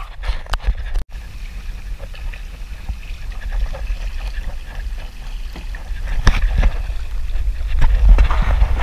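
Kayak paddling on calm water: paddle strokes splashing and water gurgling along the plastic hull, with scattered knocks and a steady low rumble.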